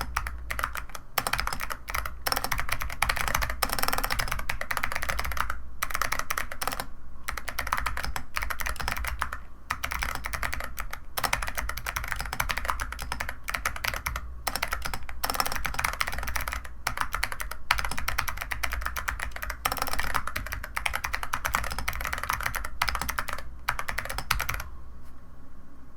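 Fast continuous typing on a CIDOO ABM066 mechanical keyboard fitted with 45 g Zeal Clickiez switches and SA-profile keycaps, in runs of keystrokes broken by brief pauses. The typing stops about a second before the end.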